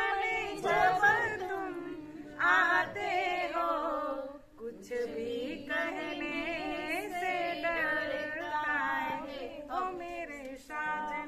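Women's voices singing a song unaccompanied, in long held notes with a brief break about four and a half seconds in.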